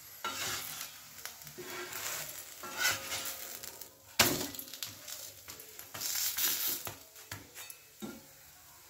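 Flat steel spatula scraping and pressing a paratha on a cast-iron tawa in several strokes, with the bread sizzling. A sharp clank of the spatula against the pan comes about four seconds in.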